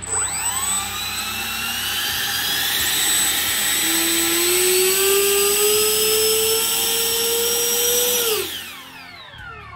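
A 50 mm 12-blade electric ducted fan, driven by a 4600 KV motor, spooling up to a high whine on throttle. It holds there, creeping slowly higher in pitch, then spools down with a falling whine about eight and a half seconds in.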